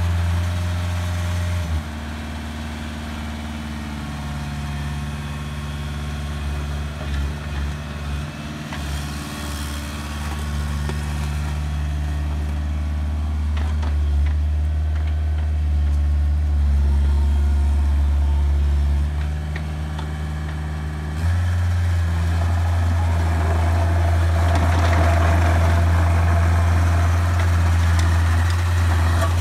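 Bobcat 430 mini excavator's diesel engine running steadily while the machine moves and swings on the gravel. The engine note drops about two seconds in, then rises and gets louder about two-thirds of the way through. A grainy rushing noise joins it near the end.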